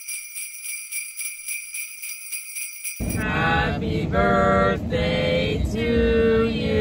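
Sleigh-style jingle bells shaken in a steady beat of about four strokes a second, with a bright ringing, cutting off abruptly about three seconds in. Then several voices sing with long held notes over a low car-cabin rumble.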